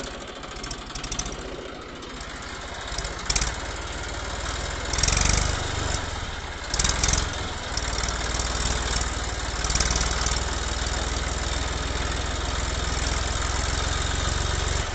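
Small motor running steadily with a fast buzzing pulse, growing louder in a few short swells, as a toy tractor drives through mud and sand.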